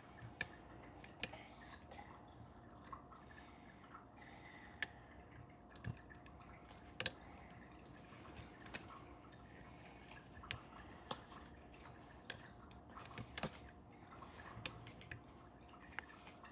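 Faint, irregular small clicks and ticks of a dimple pick working the pins inside a Mul-T-Lock Interactive dimple lock under light tension.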